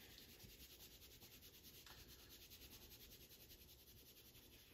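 Faint scratching of a pencil shading on paper, in quick back-and-forth strokes about four a second.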